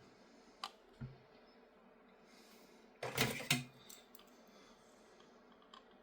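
Small parts being handled on a workbench: a sharp click, a soft knock, then a short clatter of small pieces about three seconds in.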